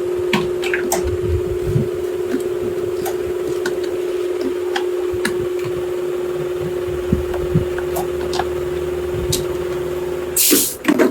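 A small machine's motor hums steadily at one pitch, with scattered light clicks and knocks. Near the end the hum stops, with a short loud hiss and a few knocks.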